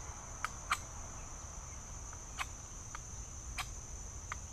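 A steel knife blade scraped across a ferrocerium fire rod in about five short, sharp strokes spaced irregularly, as sparks are attempted with the unsharpened Glock 78 field knife. A steady high insect trill runs underneath.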